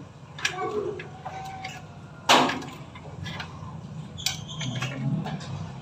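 A screwdriver and a plastic terminal cover clicking and knocking against a water pump's motor housing as the cover is worked open, with a sharp knock about two seconds in and another a couple of seconds later.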